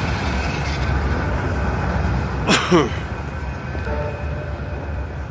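Steady low rumble of city traffic and trams, with a short, loud, shrill sound about halfway through.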